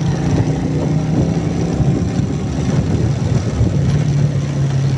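Motorcycle engine running while riding, its note uneven for the first few seconds and then settling into a steady drone.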